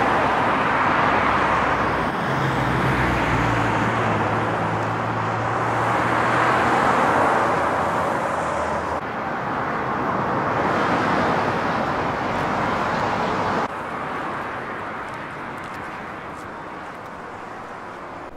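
Road traffic on a multi-lane road: cars passing, the tyre and engine noise swelling and fading as each goes by. About three-quarters of the way through it drops suddenly to a quieter traffic hum.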